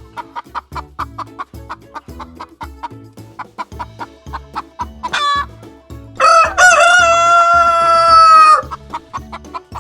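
Chickens clucking in a quick steady run, with a short squawk about five seconds in. Then a rooster crows once for about two and a half seconds, the loudest sound.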